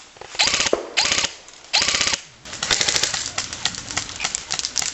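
Electric airsoft guns firing on full auto: three short bursts of rapid shots in the first two seconds, then a longer run of fast, rattling fire.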